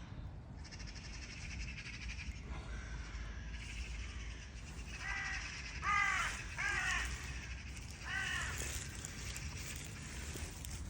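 Crow cawing about four times, in short harsh calls, with a faint steady low hum underneath.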